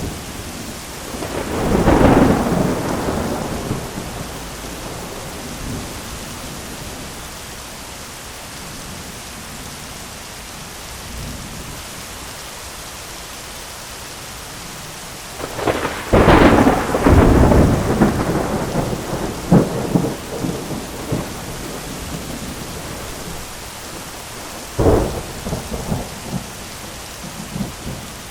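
Heavy rain falling steadily on an umbrella, with rolls of thunder: one about two seconds in, a longer and louder rumble a little past the middle, and a shorter one near the end.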